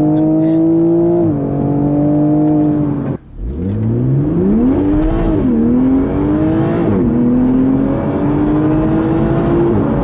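Toyota GR Supra's turbocharged engine accelerating, heard inside the cabin. First it plays with the Active Sound engine-note enhancer on, the revs climbing and dropping at a gear change about a second in. Then, with the enhancer off, it revs up from low and drops at two more upshifts, climbing again near the end.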